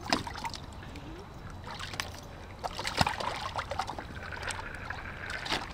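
Water sloshing and splashing in a plastic kiddie pool as a toddler stirs and scoops it with a toy shovel, with a few sharper splashes, the loudest about three seconds in.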